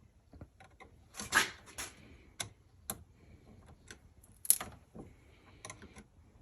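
Irregular clicks and short scraping rubs of a tool and intake parts as hose clamps are tightened on a cold air intake's tube and silicone hose, the loudest scrapes about a second in and again near the middle.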